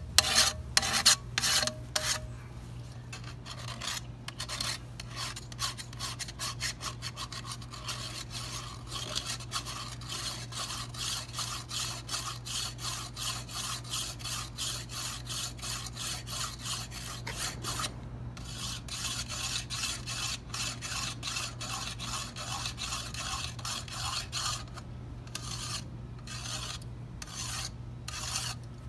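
Handheld pocket knife sharpener scraped in quick repeated strokes, several a second, along the rim of an old frying pan: a metal-on-metal rasping as the sharpener shaves metal chips off the pan's edge. It pauses briefly a couple of times.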